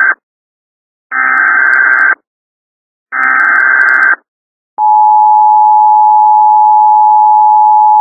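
Emergency Alert System header and attention signal: the end of one harsh warbling digital data blast, then two more, each about a second long with a second's gap between them. A moment of silence follows, then the steady two-tone EAS attention tone starts a little past the middle and holds.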